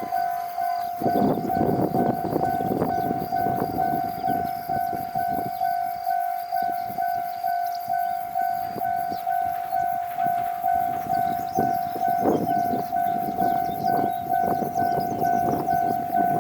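Japanese railway level-crossing alarm ringing its 'kan-kan' warning tone over and over, about two to three strokes a second. The noise of a passing train's wheels on the track swells and fades beneath it.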